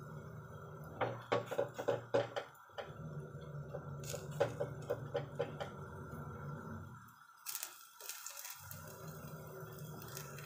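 Battered bread slices crackling and clicking softly in an oiled frying pan as they are pressed down by hand, over a steady low hum, with a brief louder rustle about three quarters of the way through.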